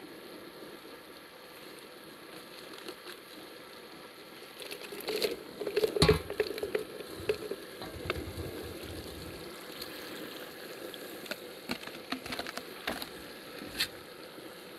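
Rice and broth simmering in a large paella pan over a fire, a steady bubbling and sizzling. About five to eight seconds in come several sharp knocks and clatter, the loudest near six seconds, then a few lighter clicks later on.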